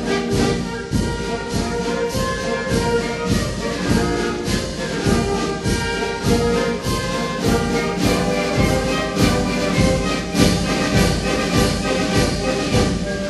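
Orchestral background music with brass over a steady beat.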